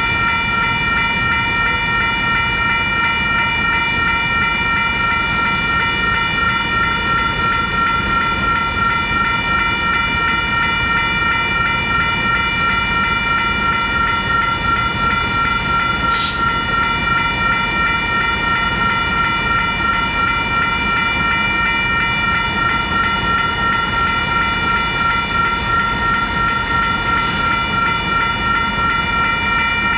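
Union Pacific train rolling past with a steady rumble, and several steady high-pitched tones held over it throughout. There is a single sharp click about halfway through.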